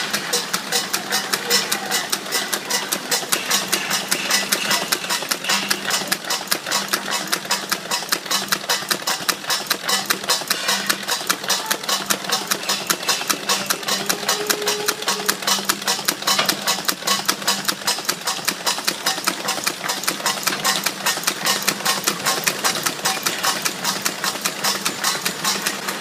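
Pre-fold and crash-lock bottom folder gluer running at speed: a fast, even clatter of its belts, chains and folding mechanism over a steady motor hum.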